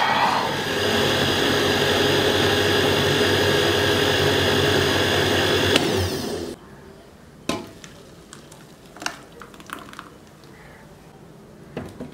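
Electric countertop blender running steadily while puréeing strawberries, then switched off about six and a half seconds in. After it stops there are a few scattered clicks and knocks.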